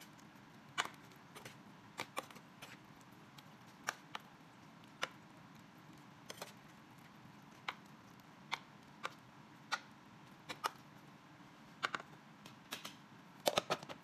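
Metal spoon clicking and scraping against a microwave cooking box while chicken and onions are stirred: sparse, irregular light taps, with a quick run of clicks near the end as the lid goes on.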